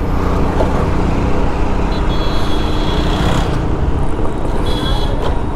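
Road traffic: a steady mix of engine and road noise. Two short high-pitched tones come through, one about two seconds in lasting over a second, and a shorter one near the end.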